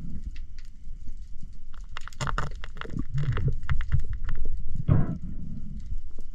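A spearfisher's breaths and water splashing, in irregular rushes about two seconds in and again near five seconds, over a low rumble with scattered short clicks.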